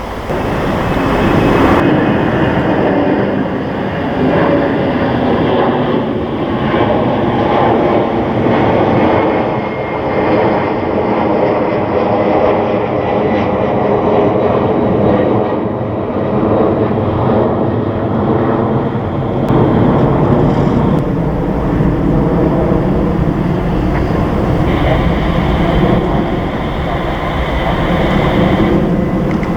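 The four GEnx turbofan engines of a Boeing 747-8F freighter on landing, a steady loud jet roar with engine tones running through it. The sound changes abruptly twice, about two-thirds of the way in and again near the end.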